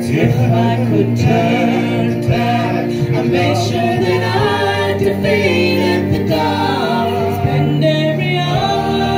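A small group of singers performing a song together into microphones, several voices at once with long held notes over steady low notes.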